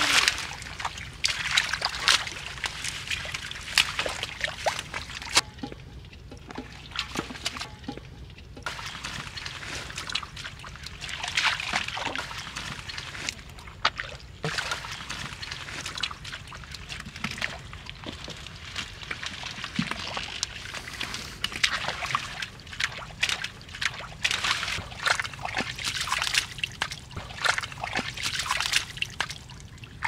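Shallow muddy water sloshing and splashing irregularly as bare feet wade and hands grope through it, easing off for a few seconds about six seconds in.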